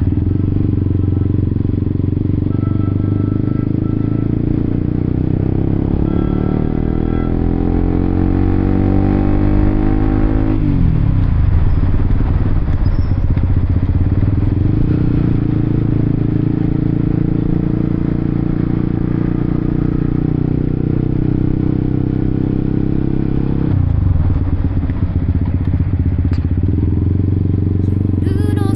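Honda CBR1000RR-R Fireblade's inline-four engine under way, the revs climbing steadily for several seconds. A gear change near the middle drops the pitch suddenly, then it climbs again, with another shift a few seconds before the end.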